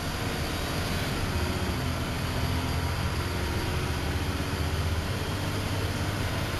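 Dennis Trident double-decker bus's diesel engine running at a steady pitch while the bus is under way, heard from inside the passenger saloon with road noise.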